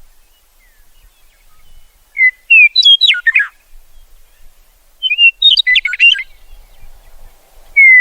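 Meadowlark singing: two loud phrases of fluty, gliding whistled notes that tumble down at the end, a couple of seconds apart, with a third phrase beginning at the very end.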